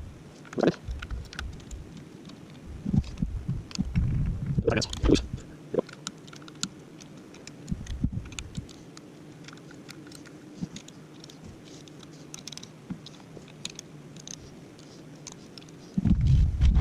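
Scattered light clicks and knocks of metal parts and hardware being handled during assembly, with a few low thuds about four to five seconds in and a louder bump near the end.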